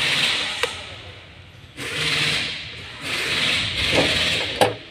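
Plastic fuel pump module being handled and fitted together by hand: stretches of rubbing and scraping, with a sharp click about half a second in and a louder one near the end.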